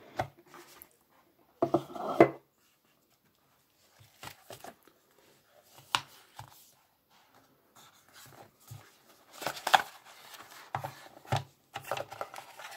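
Paperboard smartphone box being unpacked by hand: a dense rustling scrape about two seconds in as the lid comes off, then irregular taps, knocks and rustles of the phone and paper inserts against the box, loudest around ten seconds in.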